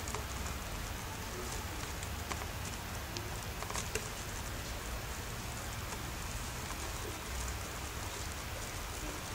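A cat licking the fur of a toy cat: scattered soft ticks over a steady hiss.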